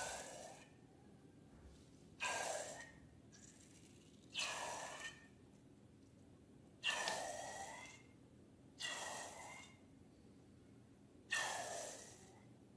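Slime squelching with puffs of trapped air, in six short bursts about every two seconds, each starting sharply and fading.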